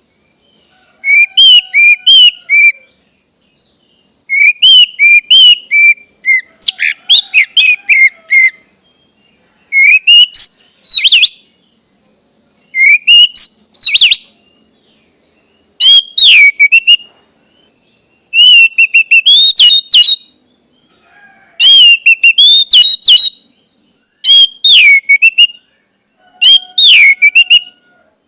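Orange-headed thrush singing: loud, short whistled phrases of quick warbling notes, one after another every second or two, over a steady high hiss.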